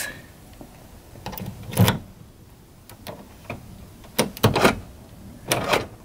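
Freshly machine-cut key being worked into a 1993 Dodge Shadow's door lock cylinder and turned: a string of short metallic clicks and rattles, the loudest about two seconds in, as the lock opens.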